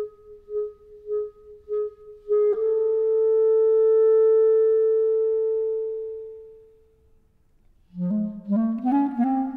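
Solo clarinet playing a contemporary classical piece: one note repeated in short detached strokes, about three a second, then a long held note that swells and fades away almost to silence, then, near the end, a quick run of notes climbing up from the low register.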